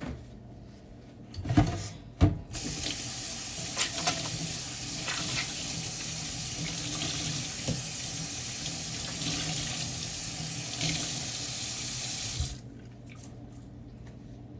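Kitchen tap running into a sink in a steady stream for about ten seconds, then shut off. A couple of sharp knocks come just before it starts.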